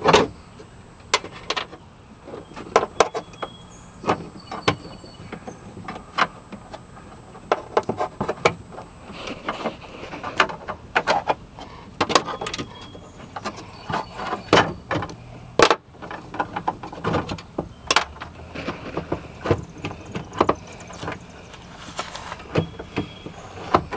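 Irregular clicks, clanks and knocks of hand tools and metal parts being handled while a van's power window motor and regulator are worked on.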